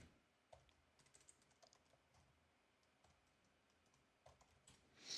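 Faint, scattered keystrokes on a computer keyboard as a short name is typed, with one slightly louder tap near the end.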